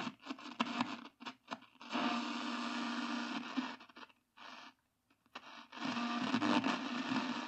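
Wega Herold K tube radio's loudspeaker hissing and crackling with static, cutting out abruptly to silence several times, longest about four and a half to five and a half seconds in. The reception is dropping in and out because the oscillator keeps stopping, which the owner puts down to the tuning capacitor shorting inside.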